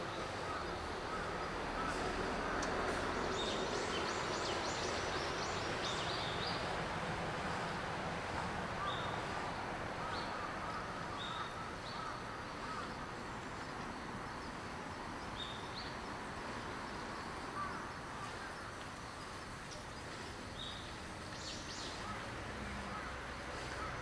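Outdoor ambience of steady background noise, with a scattering of short, high bird calls.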